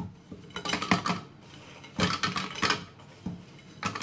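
Cream-O chocolate sandwich cookies being dropped a few at a time into an empty plastic blender jar: light clattering clicks in three clusters, about half a second in, about two seconds in, and near the end.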